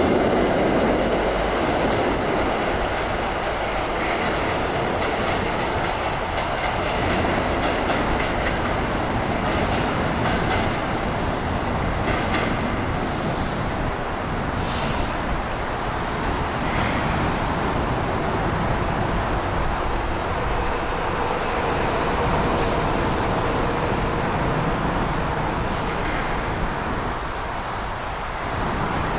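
MBTA commuter rail train running past on the tracks: a steady rumble of wheels and coaches, loudest at the start. Two short hisses come about halfway, followed by faint high wheel squeals.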